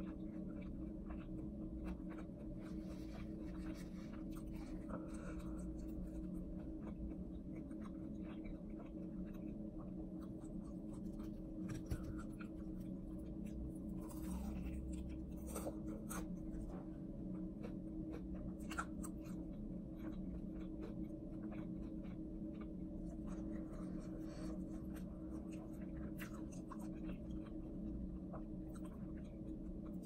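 Close-miked crunching and chewing of crispy fried chicken: irregular short crisp crunches over a steady low hum.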